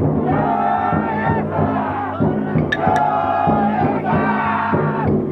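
Festival float bearers chanting and shouting together in long drawn-out calls, over the float's taiko drum beating about twice a second.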